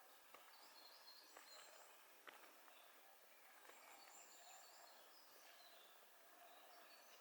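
Faint forest ambience: distant small birds chirping now and then over a soft steady hiss, with a few light clicks.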